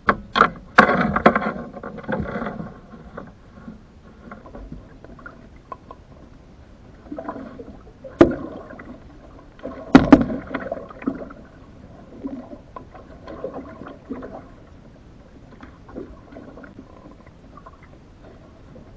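Knocks and clattering on the wooden hull of a wood-strip canoe, picked up close by a camera mounted on the canoe. A burst of loud knocks comes in the first few seconds, with single sharp knocks about eight and ten seconds in, and light scattered taps between them.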